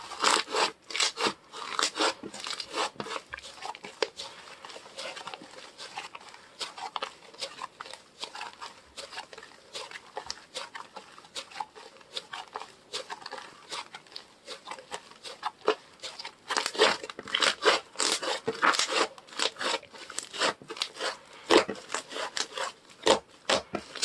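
Hands squishing, poking and stretching a soft slime, making a quick, irregular run of small clicks and pops. The clicking grows busier and louder about two-thirds of the way through.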